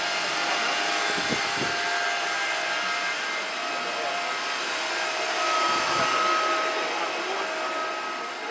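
Steady rushing noise inside a busy electronics mall, like ventilation or fans, with faint steady tones through it.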